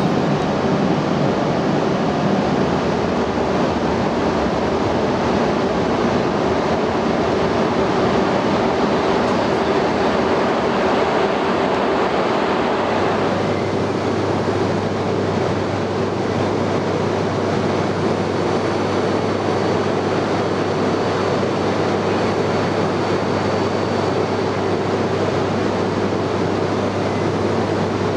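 E926 East-i Shinkansen inspection train: a steady mechanical rush and hum with a constant mid-pitched tone. A lower hum joins about halfway through.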